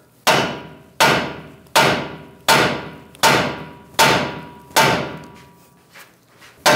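Hammer blows on the steering knuckle of a Ram 1500's front suspension, knocking the ball joint's taper loose. Seven metallic strikes come about three-quarters of a second apart, then a short pause and one more near the end, each ringing briefly.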